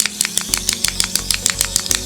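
Battery-powered Trackmaster toy train engine running, its motor and gears giving a rapid, even clicking of about ten clicks a second with a low hum under it.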